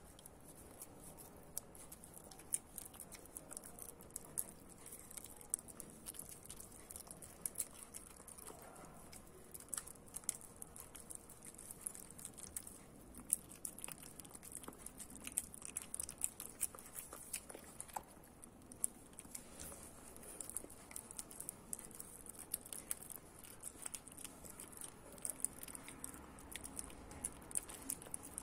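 A pinscher puppy licking and chewing a peeled banana, making a quick, irregular run of small wet smacking and clicking mouth sounds.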